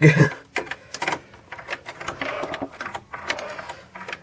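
Royal manual typewriter being typed on: irregular clacks of keys and typebars striking, with some rattle from the exposed mechanism.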